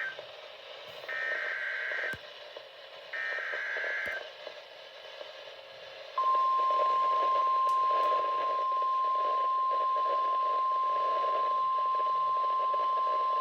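Emergency Alert System SAME header data bursts: buzzy two-pitch warbles, about a second each and a second apart, encoding the tornado warning. About six seconds in they give way to the steady single-pitch 1050 Hz weather-radio warning alert tone, all over a radio hiss.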